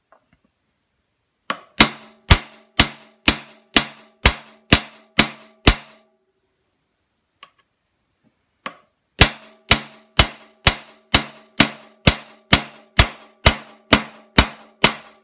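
Hammer striking a stubby steel punch to drive a pin out of a Vepr 12 shotgun's rear sight block. Sharp metallic blows with a ringing tone come about two a second, a run of about ten, then a pause, then about fourteen more. The pin is starting to move out, which shows as a change in the pitch of the strikes.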